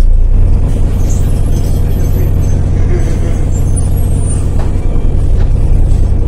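Heuliez GX 127L city bus's diesel engine running steadily at idle, a deep low rumble heard from inside the passenger cabin while the bus stands still.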